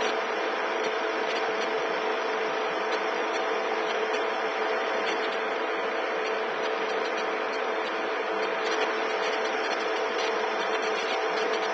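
A machine running steadily: an even mechanical whirr with a constant two-note hum that does not change in speed or pitch.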